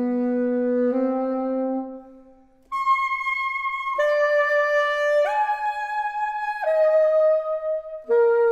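Unaccompanied alto saxophone playing a slow passage of long held notes: a low note fades out, and after a short pause the line leaps to a high note, then moves through held notes back down lower.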